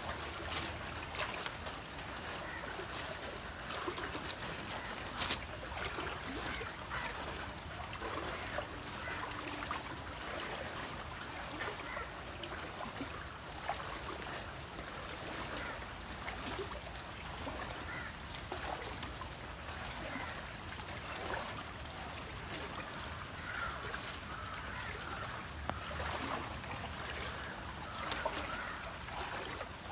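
Wading through shallow muddy floodwater: steady sloshing and splashing, with scattered sharper splashes.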